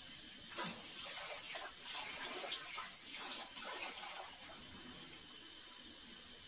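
Water running from an outdoor tap and splashing into a metal bucket, starting about half a second in, with irregular splashes as a dog bites and laps at the stream.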